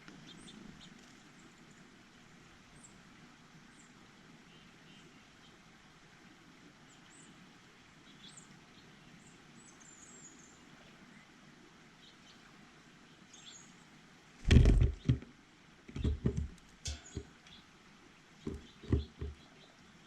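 Faint, short, high chirps of small birds at a feeder, scattered through the quiet. From about halfway through, a run of loud, irregular knocks and thumps close to the microphone.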